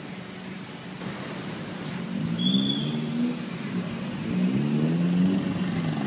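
A car engine accelerating on a wet road, its pitch climbing about two seconds in, dropping, then climbing again. A brief high whistle sounds over it about two and a half seconds in.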